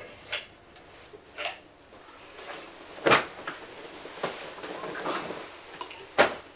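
Several sharp knocks and bumps, the two loudest about three seconds in and near the end, with soft rustling of bedding between them.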